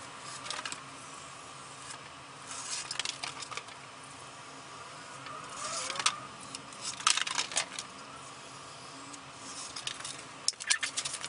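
Short bursts of scratching and squeaking from a marker being drawn along a ruler on a sheet of half-inch pink foam board, and from the foam sheet being handled on a wooden table, about five times over.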